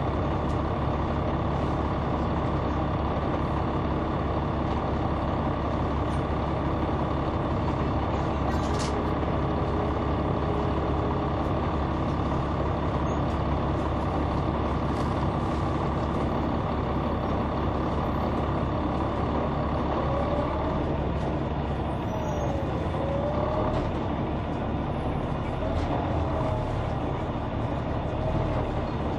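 Caterpillar C9 ACERT diesel engine of a 2004 Neoplan AN459 articulated bus, heard from inside the bus, running steadily. In the last third a wavering whine rises and falls over the engine sound.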